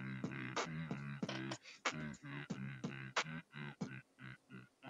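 Beatboxing: sharp mouth-made percussion clicks, about three a second, over a hummed low bass note.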